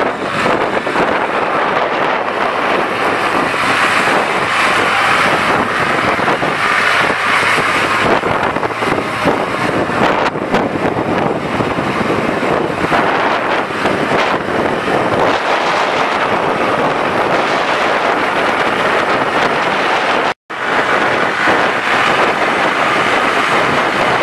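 International 2510 tractor's gas engine running as the loader tractor drives about on gravel, with wind buffeting the microphone. The sound cuts out for a split second about 20 seconds in.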